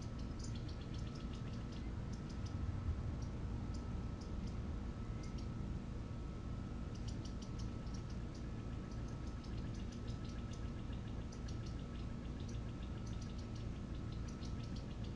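Faint outdoor ambience: runs of short, high ticking chirps come and go in clusters over a steady low rumble and a faint thin hum.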